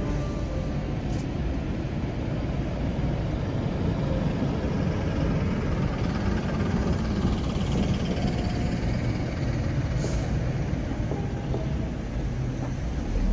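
Vehicle running: a steady low rumble.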